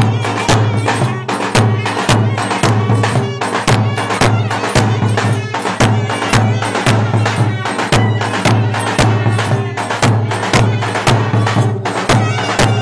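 Turkish folk dance music led by clarinet, with a steady drum beat and clattering percussion.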